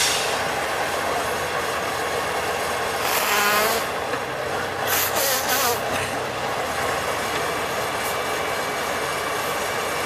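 Tatra 815 six-wheel trial truck's diesel engine running steadily under load, with three short sharp hisses: one at the start, one about three seconds in and one about five seconds in.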